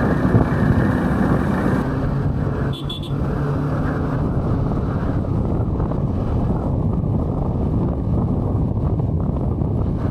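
Motorcycle running at road speed, its engine drone under a steady rush of wind on the rider's microphone. A short high-pitched beep about three seconds in.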